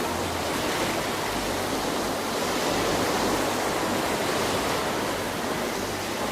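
Steady rushing of water, an even noise with no distinct splashes.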